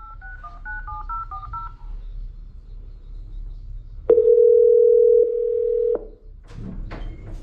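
Apartment lobby intercom call box dialing a resident: a quick run of touch-tone (DTMF) beeps, then after a short pause one steady ringing tone for about two seconds while the call connects. A few faint clicks follow near the end.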